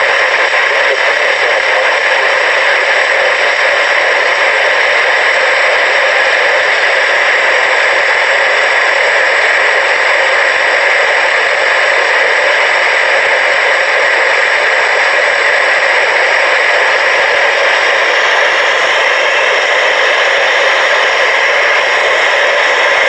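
Steady, loud radio static: an even hiss from a receiver tuned to a weak or empty frequency while DXing for distant stations.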